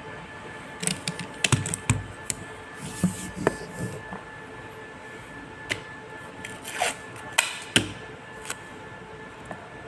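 Handling clicks and knocks of a selfie-stick tripod and a small plastic umbrella clamp being adjusted and fitted together, scattered irregularly and clustered in two spells, the sharpest near the end.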